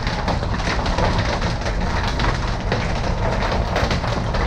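Storm of gusting wind with driven rain and hail, heard as a loud steady rush with a deep rumble of wind on the microphone and scattered small ticks of hailstones.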